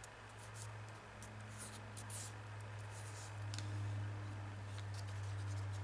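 Fingertips rubbing a tea bag pressed onto a gel printing plate: a handful of brief, soft rubbing strokes over a steady low hum.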